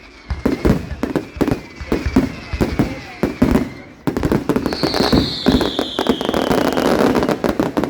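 Fireworks display: a rapid run of sharp bangs from exploding shells. About four and a half seconds in comes a high whistle that falls slowly in pitch, over dense crackling and bangs.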